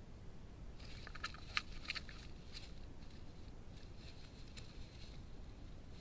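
European hedgehogs scuffling at a feeding dish. A burst of sharp clicks and scrabbling rustles comes about a second in, then fainter rustling.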